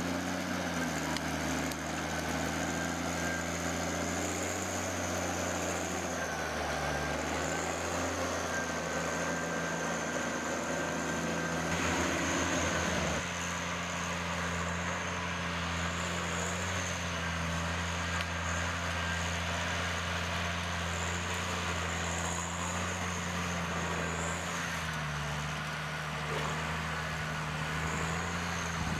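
A heavy machine's engine running steadily under a constant high whine, with a short rougher change in its note about twelve seconds in.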